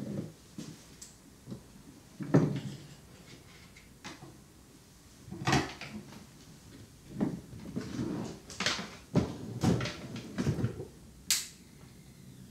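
Irregular knocks and clicks of objects being handled, about eight short sharp ones spaced unevenly, the loudest about two seconds in.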